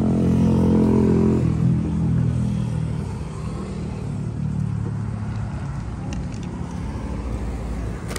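A motor vehicle's engine going past close by, loudest in the first two seconds and then fading, leaving a low steady rumble of traffic.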